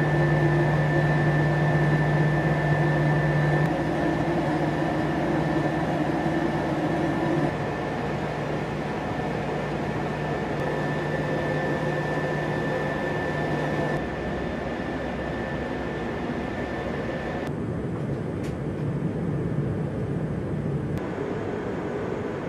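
Steady in-flight cabin noise inside a P-8A Poseidon: a constant rush of engine and air noise with steady hums at several pitches. The mix shifts abruptly several times.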